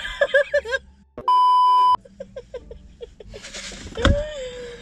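A censor bleep: one steady, high beep lasting under a second, starting and stopping abruptly about a second in. Laughter comes before and after it.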